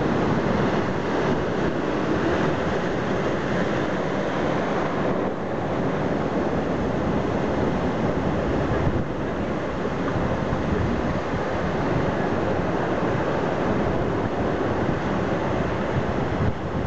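Ocean surf breaking on a rough limestone coast, with water surging across the rock shelves and spilling off their edges: a steady, dense wash of churning water.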